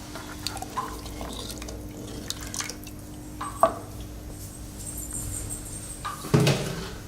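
Liquid dripping and sloshing in a clay pot of thin herbal rasam, with scattered light utensil taps over a steady hum. A sharp tap comes about three and a half seconds in and a louder clatter near the end.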